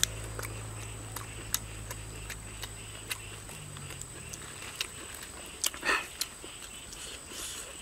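Close-up eating sounds: scattered crisp clicks and smacks of chewing and mouth noise. Two sharp breaths are drawn in, about six seconds and seven and a half seconds in.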